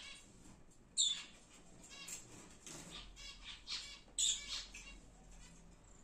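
Lovebirds chirping and chattering: quick, high calls throughout, with two sharp, loud shrieks, about a second in and about four seconds in.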